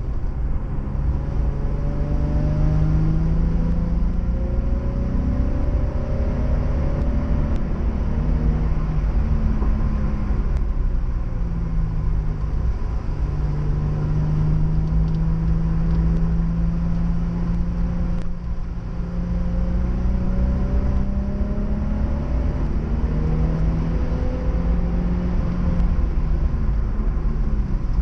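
Nissan 350Z's V6 engine revving hard on a wet circuit, its pitch climbing and dropping again and again through gear changes and braking, over a steady low rumble of road and tyre noise.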